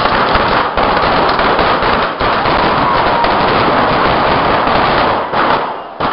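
Firecrackers and spark fountains going off together in a dense, continuous crackle of rapid sharp cracks. The crackle eases for a moment about two seconds in and dies down near the end.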